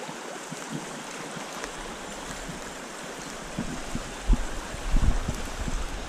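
Flowing water of a small trout stream, a steady rush. In the second half, irregular low rumbles and thumps come over it.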